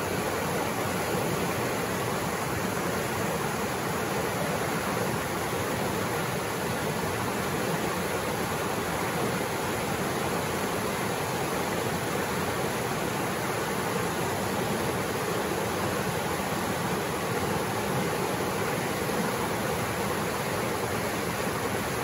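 Clear mountain stream rushing over boulders in small rapids, a steady, even rush of water.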